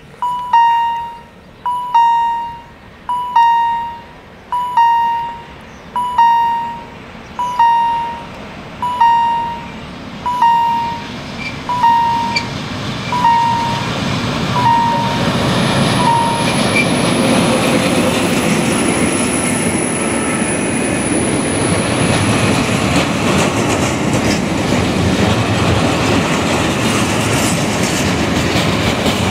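Level-crossing warning bell striking about every one and a half seconds, each stroke ringing and fading. Partway through it gives way to the S200 diesel locomotive passing close by, followed by the steady rumble and wheel clatter of the coaches and a heavy multi-axle load wagon rolling slowly.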